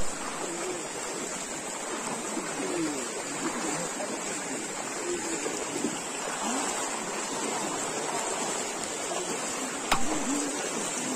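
Steady rush of flowing floodwater, an even hiss, with a sharp click near the end.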